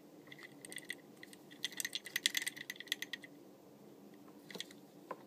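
Light metallic clicks and scrapes of a Dan Wesson Guardian 1911 pistol's slide, frame and slide stop being worked by hand to line up the slide stop with its notch, with a quick run of clicks in the middle.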